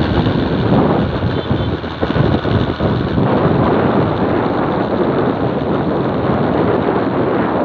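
Wind gusting across the microphone: a loud, steady rush with an uneven low rumbling buffet, heaviest in the first few seconds.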